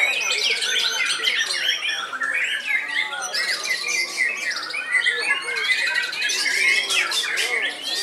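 Caged white-rumped shamas (murai batu) singing at once in a dense, overlapping chorus of whistles, quick trills and rapid chattering, loud throughout.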